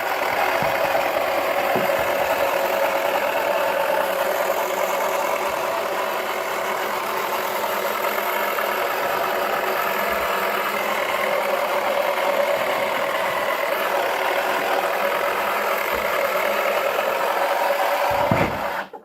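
Toy washing machine's small electric motor running with a steady hum.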